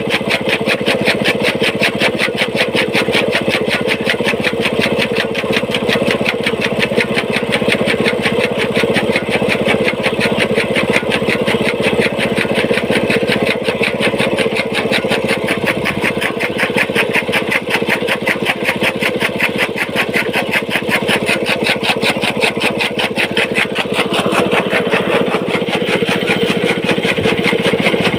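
Small petrol engine running steadily under load, with a rapid even beat, belt-driving a chaff cutter whose flywheel-mounted blades chop green fodder as it is fed in.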